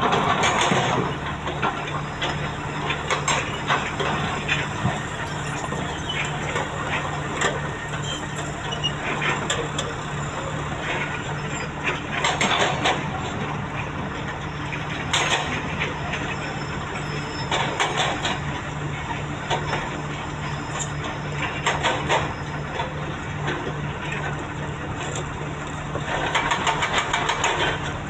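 Heavy excavator's diesel engine running steadily under load, with louder noisy surges of working noise every few seconds.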